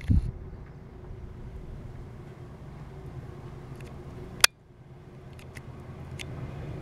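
Distant Eurocopter EC175 twin-turbine helicopter in flight: a low, steady rumble of rotor and engines with a faint steady hum above it. One sharp click cuts in about four and a half seconds in.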